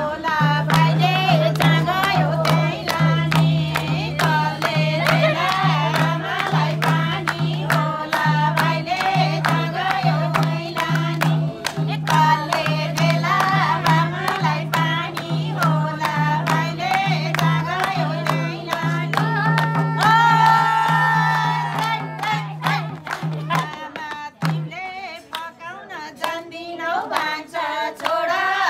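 Group of women singing a Nepali folk song together, with a madal hand drum and clapping keeping a steady beat over a low steady hum. The singing stops about four seconds before the end, leaving sparser drumming and claps.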